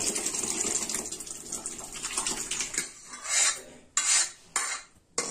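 Cooked dal poured from a pressure cooker into a pot of sambar, a steady wet pour for the first two or three seconds. Then a steel ladle scrapes and knocks against the cooker's metal in four or five short strokes to get the last of the dal out.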